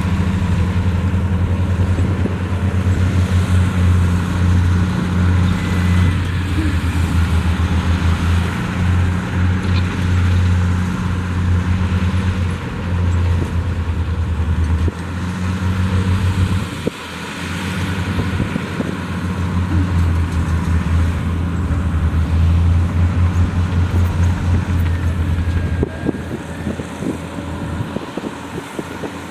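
Heavy diesel engine of earthmoving equipment running and working under changing load, its low rumble pulsing and dropping back, with a brief drop about halfway through.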